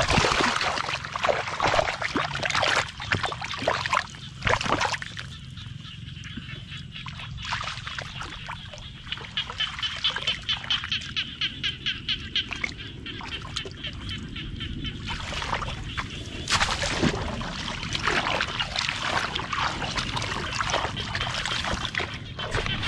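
Splashing and sloshing in shallow, muddy paddy water as a bamboo cone fish trap is worked and trapped fish churn the water inside it. Through the middle there is a fast, regular scratchy patter.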